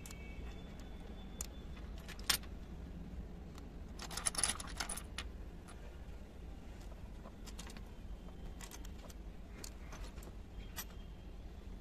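Miniature ceramic and metal kitchen pieces clinking and tapping as they are picked up and set down one by one. There is a sharp click about two seconds in and a short run of rattling clinks around four seconds in.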